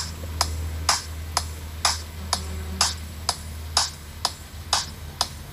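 Background music in a sparse section: a sharp click beat about twice a second over a steady low bass drone.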